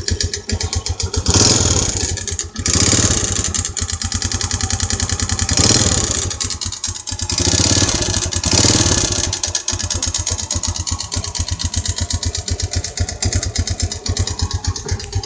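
Yamaha Vega R 110's single-cylinder four-stroke engine idling, with the throttle blipped about four times in the first nine seconds. The engine runs very rough.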